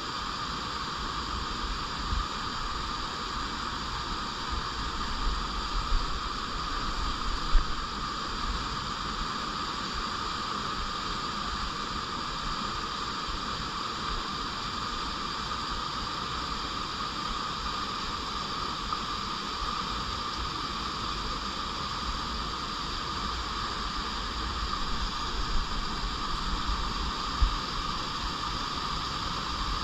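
Clear stream running over rocks, a steady rushing of water. A few short low rumbles break in about seven seconds in and again near the end.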